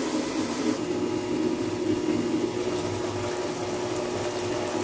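Chicken and tomato pieces boiling in a lidded pot in the liquid the chicken has released: a steady bubbling with a low, even hum underneath.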